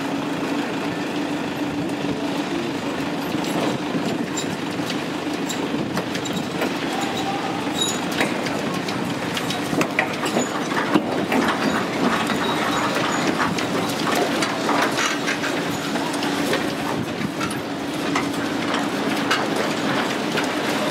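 Parked Keikyu electric train cars in a depot creaking, clattering and squeaking as they sway in earthquake shaking of Japanese seismic intensity 5-upper, the rattling densest and loudest around the middle. A steady hum runs underneath.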